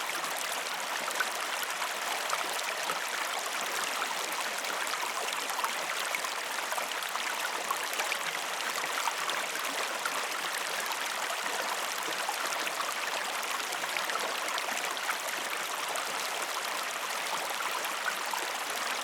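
River water flowing steadily, a calm babbling and trickling with many small splashes.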